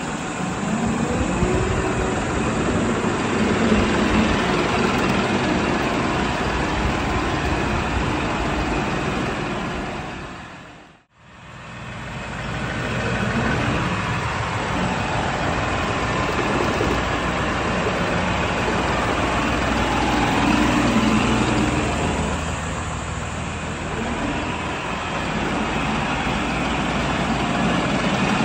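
New Holland tractor's common-rail (HPCR CRDi) diesel engine running as the tractor drives, its note rising and falling a little. The sound fades out to silence and back in about eleven seconds in.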